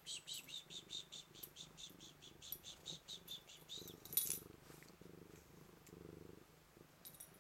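Manx cat purring steadily. For the first half of the purr, a quick even run of soft high clicks comes about five times a second. A single sharper click, the loudest sound, follows a little after four seconds.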